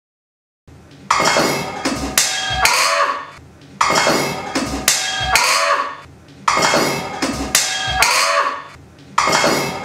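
Looped metallic percussion: a short pattern of sharp clanks with ringing, like struck pots and pans, repeating identically about every two and a half seconds. It starts about a second in.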